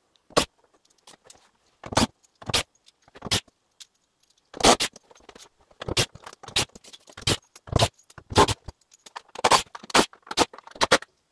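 Cordless drill-driver backing screws out of a wall board in a series of short, sharp bursts, with metallic clinking.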